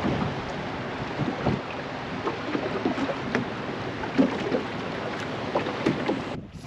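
Steady wind noise on the microphone aboard a small open boat drifting on the water, with small scattered knocks and splashes against the hull.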